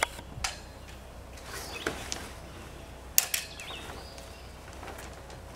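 A few sharp knocks and clicks of sail hardware and line against the mast and deck of a small trimaran while its mainsail is being hoisted and handled. The loudest knock comes a little past three seconds in.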